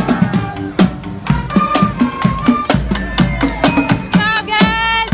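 A band playing, with a steady drum beat under held wind notes that grow stronger near the end.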